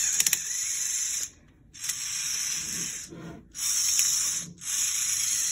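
VEX IQ smart motor driving small 12-tooth plastic gears along the elevator lift's toothed track, a high whir that runs in four stretches, cutting out briefly about 1.3, 3 and 4.5 seconds in. A few sharp clicks come about a quarter second in.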